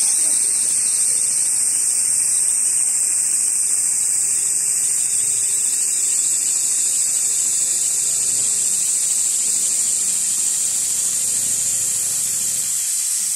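Richpeace automatic industrial sewing machine running non-stop, its sewing head stitching at speed, heard as a steady high-pitched hiss and whir over a faint low hum.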